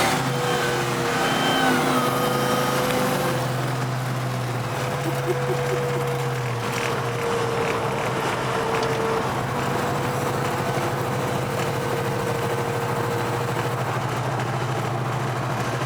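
The supercharged Hellcat V8 in a 1969 Dodge Charger, running steadily just after a rev. A high whine falls away over the first few seconds, then the engine settles into a steady drone.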